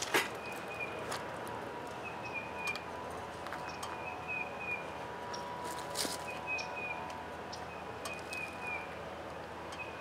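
A bird chirping outdoors, one short high call repeated every second or two, with a few sharp clicks and taps, the clearest at the start and about six seconds in.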